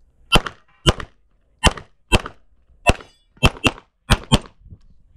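Nine pistol shots from a CZ SP-01 Shadow fired rapidly, mostly as double-taps: two pairs about half a second apart, a single shot, then two fast pairs about a fifth of a second apart near the end.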